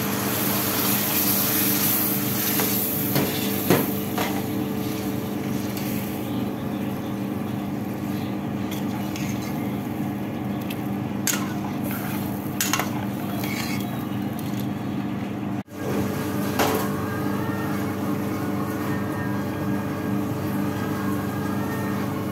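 Dal cooking in a pan, sizzling and bubbling, with a metal spoon stirring it and now and then clicking against the pan, over a steady hum.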